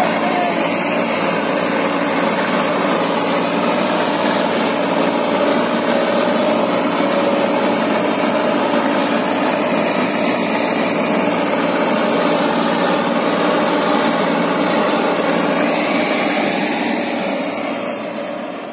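Deutz-Fahr tractor's diesel engine running steadily under heavy load while pulling a loaded trolley, fading near the end.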